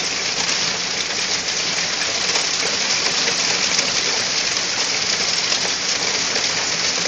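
Heavy hail and rain pelting down: a dense, steady hiss made of countless fine patters.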